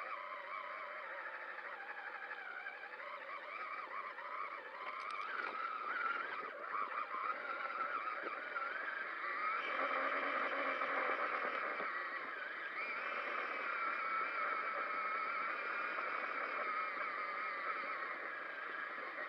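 Traxxas Summit RC truck's electric motor and geartrain whining as it drives, the pitch wavering up and down with the throttle.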